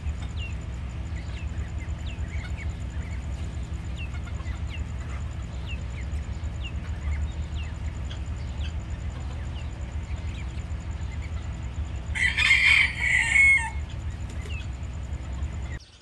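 A chick peeping in short, falling cheeps every second or so over a steady low rumble. About twelve seconds in, a rooster crows for a second and a half, the loudest sound.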